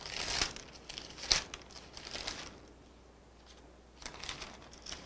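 Pages of a Bible being turned by hand: several short rustles of thin paper, with one sharp tick about a second and a half in.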